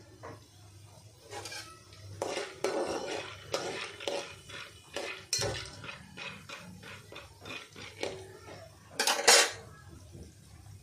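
A metal spoon stirring popcorn kernels in hot oil in an aluminium pot, scraping and clinking against the pot in a quick run of short strokes, loudest near the end.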